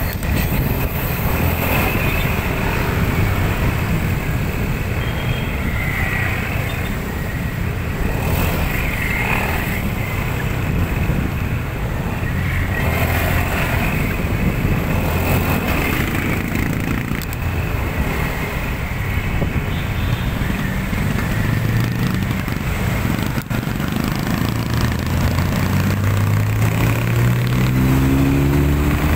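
Motorcycle engine running as the bike moves slowly through dense road traffic, with the hum of surrounding cars. Near the end the engine speeds up, its pitch rising.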